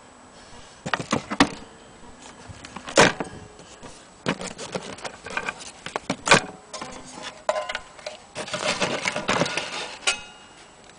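Handling noise from an old bowl-back mandolin and its worn case being moved and touched: a string of separate knocks and clicks, with a denser patch of rubbing and clatter near the end.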